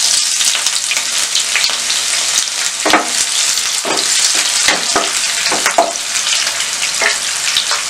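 Sliced onions sizzling steadily in hot oil in a nonstick kadhai, stirred with a wooden spatula that scrapes and knocks against the pan several times from about three seconds in.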